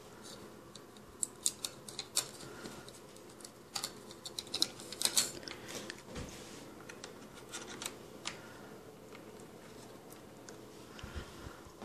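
Light clicks, taps and rustles of a hand handling small circuit boards and cables on a desk, coming in scattered bunches that are thickest about five seconds in, with a couple of dull knocks later on.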